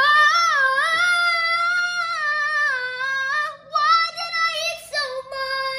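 A boy singing a long, wordless high note that slides up and down, then breaking into a few shorter notes and holding a final one near the end.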